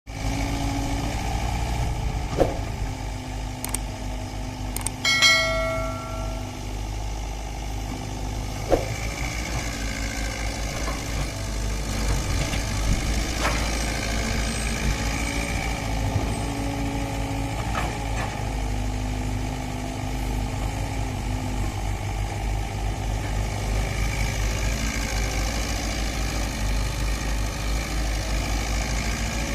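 Excavators' diesel engines running steadily under load, with a whine whose pitch steps up and down as the machines work and a few sharp knocks. About five seconds in there is one ringing clang.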